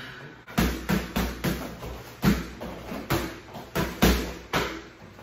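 About a dozen gloved punches smacking into a partner's boxing gloves held up as targets, landing in quick combinations, with short grunts on some of the strikes.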